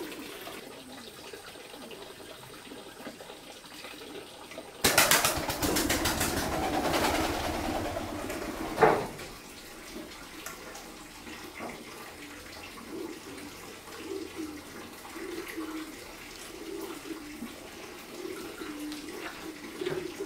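Birds cooing, faint and repeated. About five seconds in, a loud rushing noise starts suddenly and lasts about four seconds, then ends in a sharp click.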